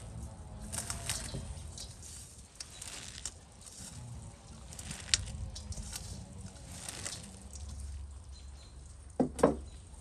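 Hands squeezing and tossing shredded red cabbage in a stainless steel colander: crunchy rustling of the leaves with light scrapes and taps on the perforated metal. Two sharper knocks stand out near the end.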